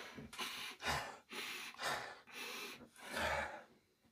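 A man sniffing repeatedly, about six short sharp intakes of breath through the nose. He is smelling an opened electronic unit for the pong of burnt-out components or leaked capacitors.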